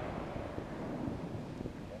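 The echo of an aerial firework shell burst dying away, over a low rumble of wind on the microphone.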